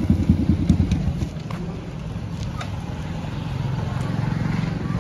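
Yamaha MT motorcycle engine running as the bike rolls to a stop, a loud low throbbing that drops to a quieter steady idle about a second in. A few light clicks sound over the idle.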